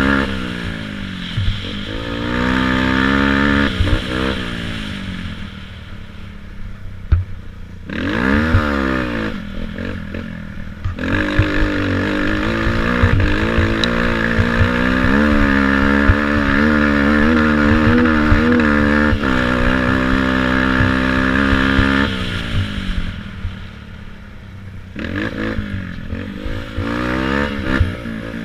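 A youth racing quad's engine, heard from a camera mounted on the quad, revving up and falling back as the throttle is worked over rough ground, holding a steady high pitch for about ten seconds in the middle, then easing off and picking up again near the end. Knocks and rattles from bumps come through under the engine.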